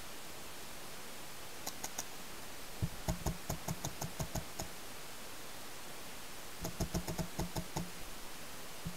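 Paintball marker firing two quick strings of shots, about five or six pops a second, each string lasting a second or two with a pause of about two seconds between them. A few lighter clicks come just before the first string, over a steady hiss.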